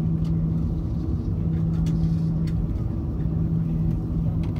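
Cabin noise of an Airbus A340-300 taxiing, heard from a window seat over the wing: its CFM56-5C4 engines at taxi power give a steady low rumble with a steady hum, and a few faint ticks come through.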